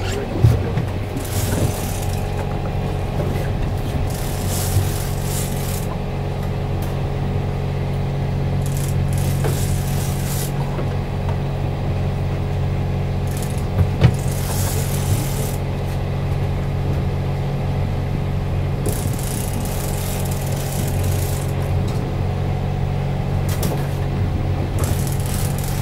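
Fishing boat's engine running steadily with a low, even hum. Patches of hiss come and go over it, and there are short knocks about half a second in and twice around fourteen seconds in.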